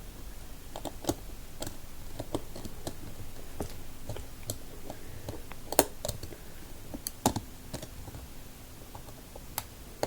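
Irregular sharp clicks and taps of a small screwdriver working at a stubborn tiny screw in an iPod touch 4th generation's metal frame, with the two loudest clicks a little past the middle.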